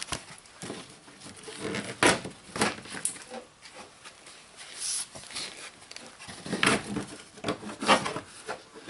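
Scattered clicks, knocks and scraping of a plastic inner-fender cover being worked loose and pulled out of a car's front wheel well.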